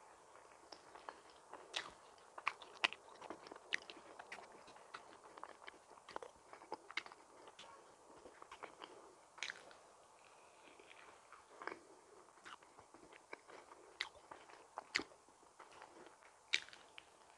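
Close-miked chewing and biting of soft cream donuts: faint, irregular mouth clicks and smacks.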